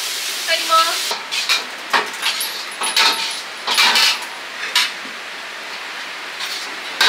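Metal ladle clanking and scraping against a wok over a frying sizzle: a quick run of sharp, sometimes ringing knocks for about five seconds, then mostly a steady hiss, with a couple more knocks at the end.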